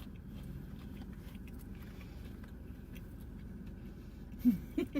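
A person chewing food inside a car, with faint mouth clicks over a steady low hum. Near the end come a few short, sharp sounds, each dropping in pitch.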